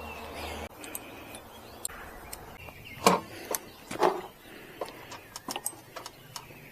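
Scattered light clicks and metallic ticks of e-bike parts being handled during assembly, with two louder knocks about three and four seconds in. A steady low hum cuts off just under a second in.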